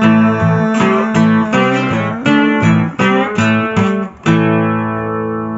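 Acoustic guitar with a capo, playing a quick run of strummed chords and picked notes, then a final chord struck about four seconds in and left to ring out.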